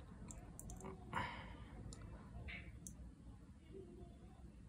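Faint scattered clicks, with a short rustle about a second in, from a hand turning the potentiometer knob on a hand-built phase-control fan-speed circuit board.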